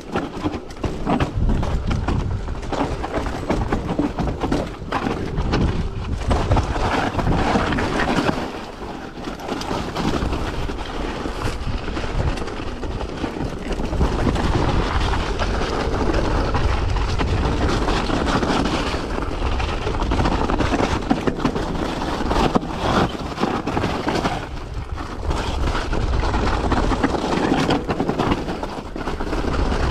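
Mountain bike descending a loose rocky trail: tyres crunching and skidding over gravel and stones, with frequent sharp knocks and rattles from the bike, over a steady low rumble of wind on the microphone.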